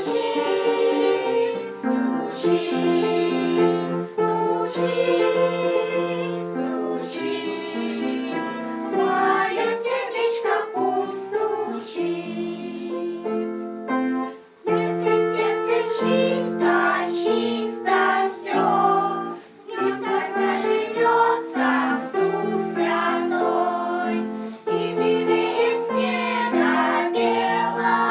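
A group of children singing a song together, with musical accompaniment under the voices.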